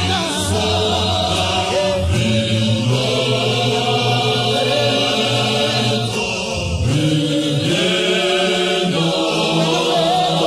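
An a cappella gospel choir of men's and women's voices singing a hymn in harmony, with long held chords that shift pitch every few seconds.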